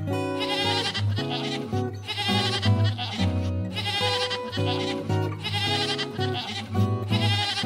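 Goat bleating over and over, a wavering call roughly every second and a half, over steady background music.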